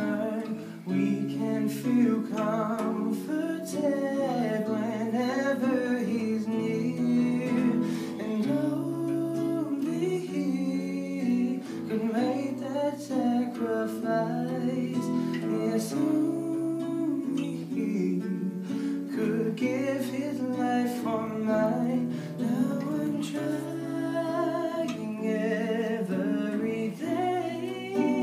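An acoustic guitar played as accompaniment to a man's singing voice, which carries the melody throughout.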